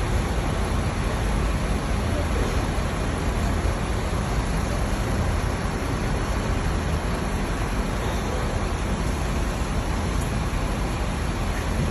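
A bus interchange's steady rumble and hiss from bus engines, even and unbroken.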